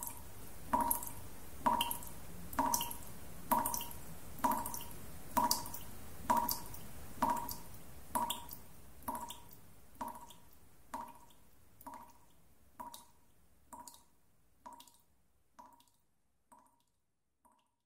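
A repeated drip-like pulse, about one a second, each a short click with a brief pitched ring, growing steadily fainter until it dies away near the end: the closing of a composition as its music fades out.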